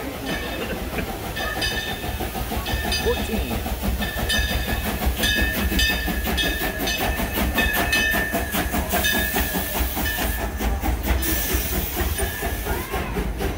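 Narrow-gauge steam locomotive pulling its passenger cars into the station, hissing steam over a heavy rumble. A steady high squeal comes in a second or two in, and from about four seconds in the wheels clack at an even beat as the cars roll past.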